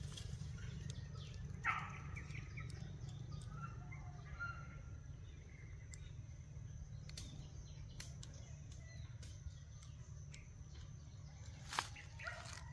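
Woodland ambience: birds giving short, scattered chirps over a steady low rumble, with a few sharp clicks, the loudest about two seconds in and near the end.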